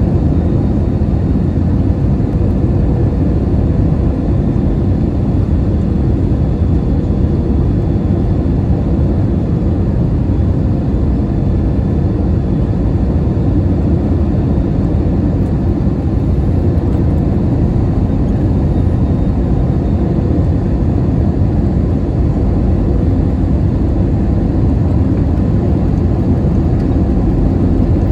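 Steady cabin noise inside an Airbus A321-211 airliner: a low, even roar of airflow and the CFM56 engines with a faint steady hum.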